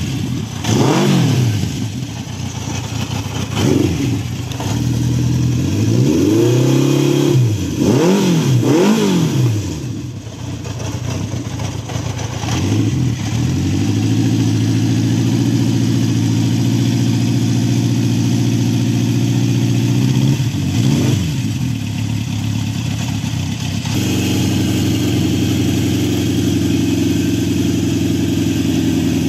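Honda CB750 Four K0's inline-four running through its original HM300 four-pipe mufflers: a string of quick throttle blips over the first ten seconds or so, then a steady idle with one more short blip about twenty seconds in.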